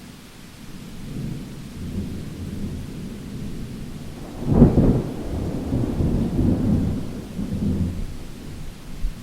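Thunder: a low rolling rumble builds, breaks into a sharp loud crack about halfway through, then rolls on and fades, over a faint hiss of rain.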